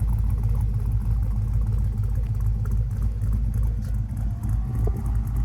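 A 5.3 LS Vortec V8 with a mild cam idling steadily with a low rumble through a stainless dual exhaust. About four seconds in, a faint whir joins it as the dual electric radiator fans kick in.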